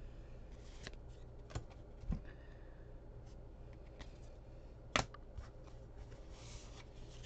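Stiff cardboard trading cards (2021 Topps Heritage baseball cards) being handled and flipped through one by one: a soft rustle of card stock with a few sharp clicks, the loudest about five seconds in, and a brief swish near the end.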